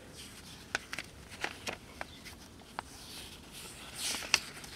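A thin paper booklet handled and opened by gloved hands: scattered light clicks and crinkles of paper, with a louder rustle as a page is turned about four seconds in.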